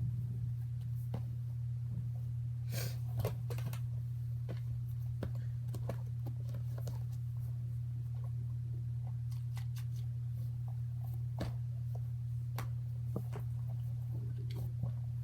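A steady low hum throughout, with scattered soft clicks and short rustles as squishy stress balls and their plastic packaging are handled and set into a container.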